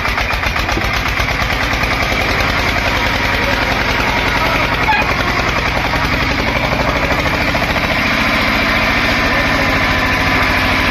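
Tractor diesel engine running steadily with a fast, even chug.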